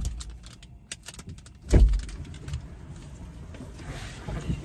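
Car door shutting with a heavy thud a little under two seconds in, with rustling and small knocks around it from someone climbing out of the back seat.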